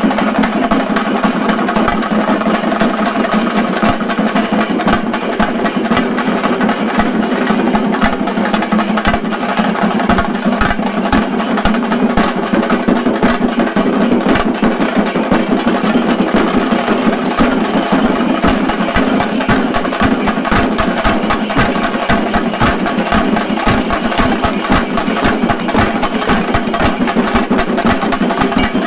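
Chenda drums of a Kerala shinkarimelam troupe played in fast, dense, unbroken rolls, loud and steady throughout.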